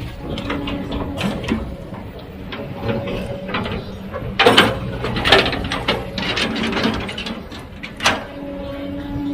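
Heavy earthmoving machine working: an engine hums steadily under repeated sharp metallic clanks and knocks, with the loudest cluster about halfway through.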